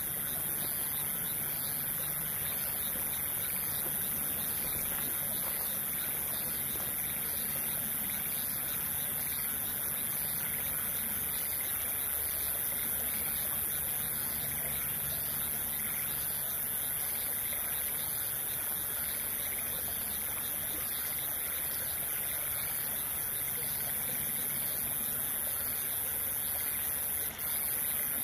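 Steady rush of a flowing stream, an even, unbroken sound.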